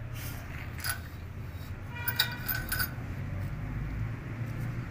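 Light metallic clinks and clatter of small steel parts and tools being handled at a small engine's open cylinder head, with a quick cluster about two seconds in, over a steady low hum.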